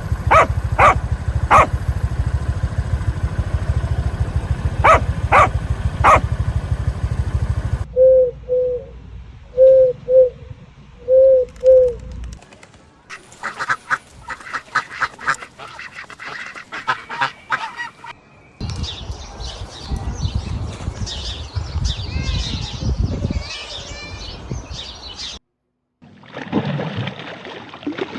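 A series of short clips of birds calling, joined by abrupt cuts: repeated harsh calls over a loud noisy background, then a few short clear calls in pairs, then rapid calls, then high chattering.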